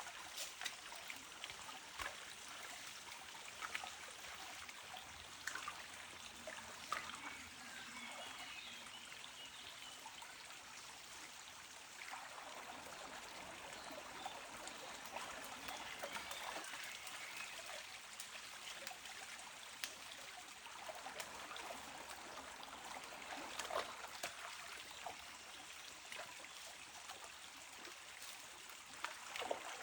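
Water trickling and flowing steadily at a stream or watering hole, with scattered small splashes and clicks throughout.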